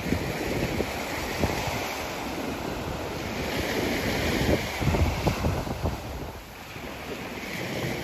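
Sea waves washing up on the beach, one surge building about three and a half seconds in and easing off by about six seconds, with wind buffeting the microphone.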